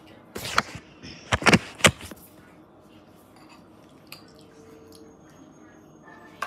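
A metal spoon clinking and knocking against a dish several times in quick succession, about half a second to two seconds in.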